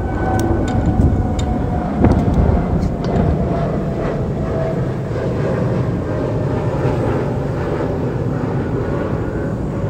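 Engines of a departing Boeing 787-9 Dreamliner (GE GEnx-1B) under climb thrust: a steady, deep rumble carrying a faint whining tone that slowly falls in pitch as the jet moves away. A few sharp clicks come in the first few seconds.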